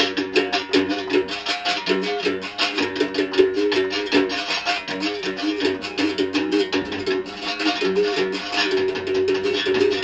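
Two berimbaus played together, their steel strings struck with sticks in a fast steady rhythm, the pitch switching back and forth between two notes.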